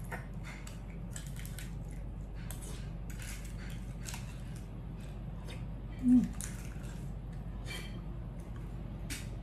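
Metal spoon scraping and clicking against the shell of a half-cooked egg as the soft egg is scooped out and eaten, with close-up wet mouth sounds, over a steady low hum. A brief, louder low sound about six seconds in.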